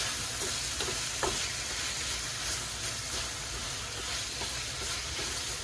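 Squid pieces sizzling in a hot frying pan, stirred with a wooden spatula that now and then taps and scrapes against the pan.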